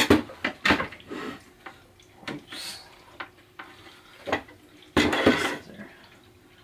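Handling noise from a sonar shuttle box as its front knobs are unscrewed: a few short knocks and clicks, then a longer scraping clatter about five seconds in.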